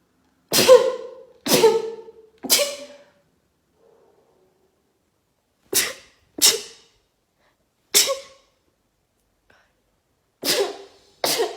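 Rapid-fire human sneezes in short runs: three in quick succession, a pause of a few seconds, then two, one, and two more near the end.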